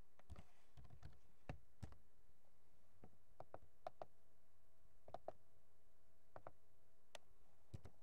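Faint computer keyboard keystrokes: scattered single clicks and quick pairs with short pauses between them, over a low steady hum.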